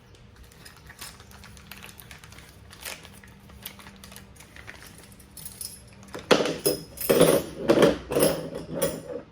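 Small metal tools and parts clinking and rattling, handled from a bike assembly toolkit: scattered light clicks at first, then a louder stretch of clattering over the last three seconds.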